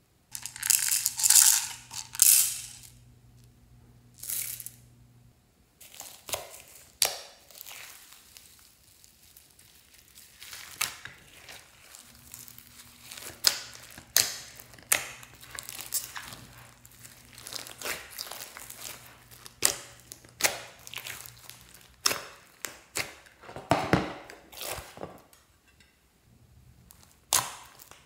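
Hands squishing and kneading a sticky slime mixed with foam beads and sequins: wet clicks, pops and crunches at irregular intervals. It opens with two louder hissing rustles.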